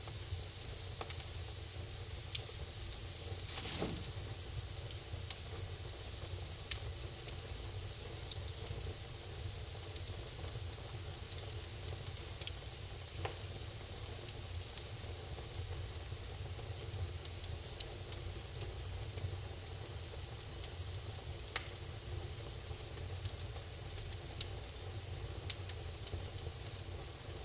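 Wood fire crackling in a fireplace: a steady hiss with scattered sharp pops and snaps, and a short louder flare about four seconds in.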